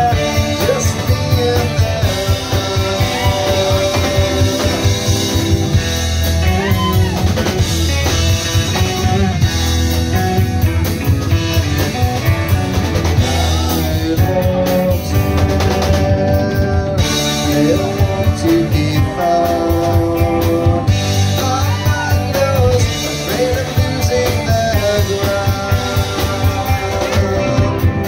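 Live blues-rock band playing: electric guitar, bass guitar and drum kit, with a male singer.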